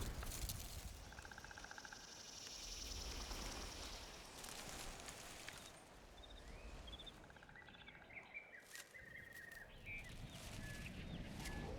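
Faint outdoor nature ambience: a low rumble under scattered short chirping calls, which cluster in the second half.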